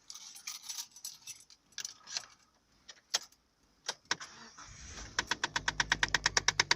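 Keys jangling and clicking at the ignition, then a 2008 Mazda 2's engine starting about four and a half seconds in. Just after it catches, a rapid, even ticking from under the dashboard, about eight ticks a second, sets in over the engine's idle: a startup fault the owner puts down to the heating/ventilation system.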